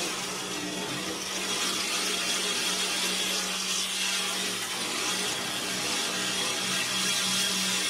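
Pressure washer running with a steady motor hum while its spray hisses against the window glass.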